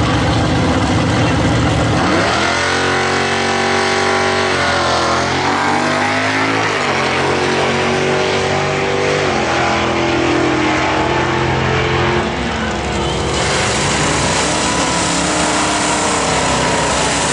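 Engines of two drag cars, the 1968 Pontiac Firebird's 670 hp engine among them, running loudly at idle at the line. An engine is revved up and down about two to five seconds in, and the engine pitch steps and shifts through the rest.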